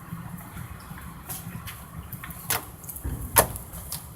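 Homemade glue slime being kneaded by hand, giving off irregular wet clicks and pops, the loudest about three and a half seconds in.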